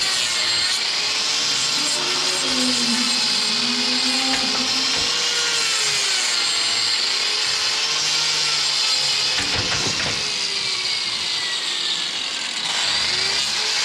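Power grinder trimming a cow's hoof, running continuously with its pitch wavering up and down as it is pressed into the horn. A few knocks come just before ten seconds in.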